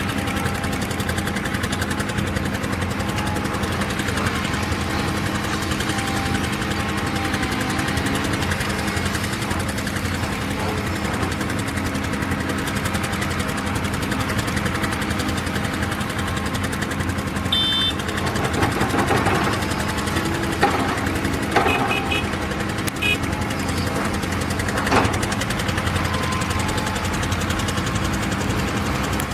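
A heavy machine's engine running steadily, with several sharp clanks and knocks in the second half.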